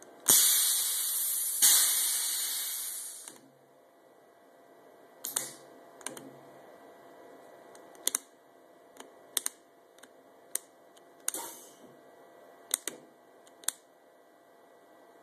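Custom air-ride system on a 1961 VW Beetle hissing as air rushes through its valves into or out of the Monroe air shocks: two long rushes in the first three seconds, the second fading away, then about eight short puffs, each starting with a sharp click, as the valves are blipped in quick bursts.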